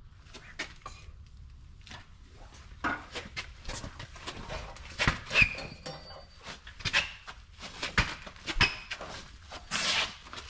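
Irregular footsteps, scuffs, knocks and rustles of people clambering under and over stored equipment in a cluttered barn, with no steady rhythm.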